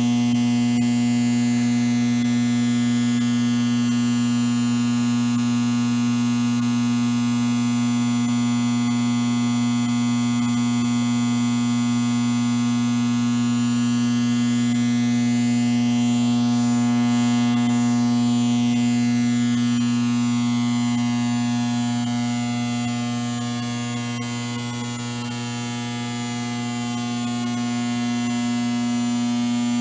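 Electrical hum sound effect: a steady loud buzz with a strong low tone and many overtones, with a slow sweeping shimmer in the high end. It dips a little in loudness about three-quarters of the way through.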